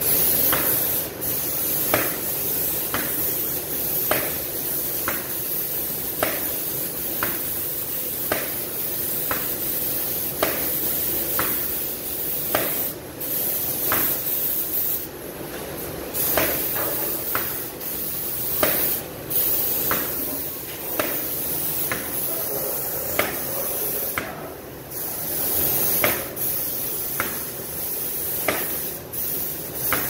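Hose-fed paint spray gun hissing as it sprays paint onto bare steel, cutting out briefly a few times between passes. A sharp click comes about once a second throughout.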